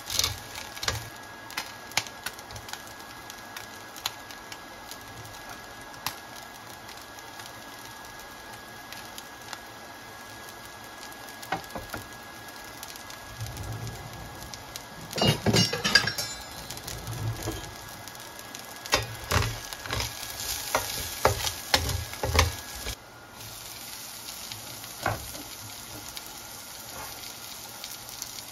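Garlic and aromatics sizzling in a stainless steel frying pan, with scattered taps and scrapes of a utensil stirring against the pan. A louder run of clatter and stirring comes about halfway through and again a few seconds later.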